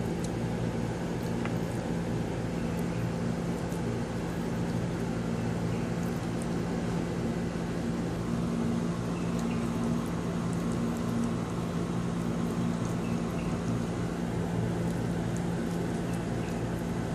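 Steady low machine hum with a light hiss, with a few faint clicks and scrapes of a spoon spreading masala over fish on a pan.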